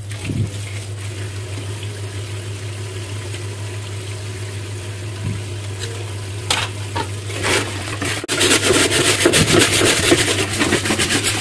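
Water running steadily from a kitchen tap into a stainless sink, with quick, rapid scrubbing strokes louder from about eight seconds in.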